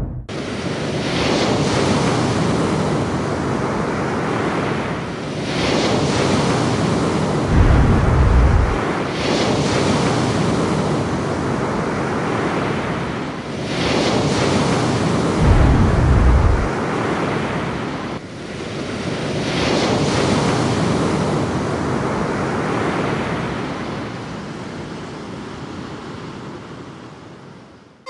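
Film sound effect of the Red Sea parting: rushing water and wind that swells about every four seconds, with two deep rumbles, about eight and sixteen seconds in. It fades down near the end.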